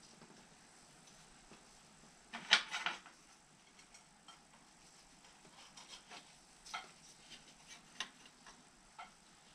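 Small metallic clicks and taps from parts of a David Brown 996 tractor's throttle linkage being handled and fitted by hand, with a short cluster of knocks about two and a half seconds in, the loudest moment, then a few light ticks.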